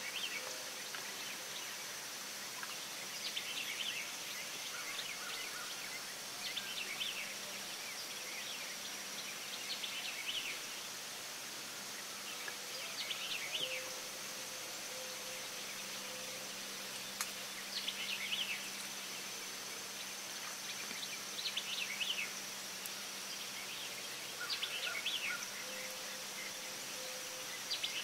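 Field ambience in late summer: a steady high-pitched insect drone, with a bird calling in short chirping phrases every few seconds.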